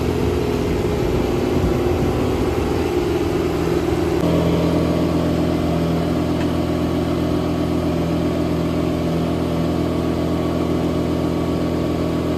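Engine of the machine rolling a mobile home section into place, running steadily; its note shifts about four seconds in.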